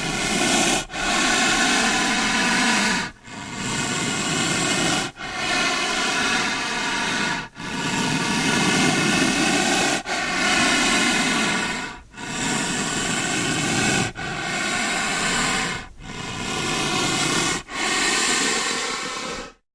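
Rhinoceros hissing breaths: a run of about ten long, loud hisses, each about two seconds, one right after another with brief breaks.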